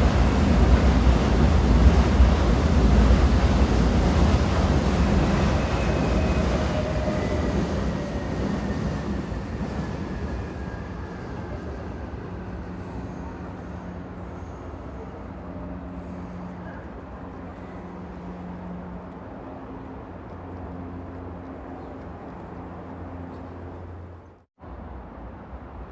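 Train running, its loud rumble fading away over the first ten seconds with a falling whine, then a quieter steady hum with low tones. The sound cuts out for a moment near the end.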